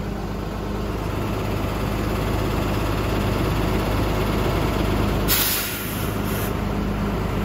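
Ballast regulator's diesel engine running steadily, with a short hiss of about a second a little past halfway through.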